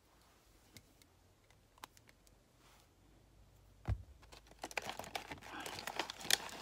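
Small handling noises: a few faint clicks, a soft thump about four seconds in, then a run of quick clicks and crinkling as hands handle lipstick packaging.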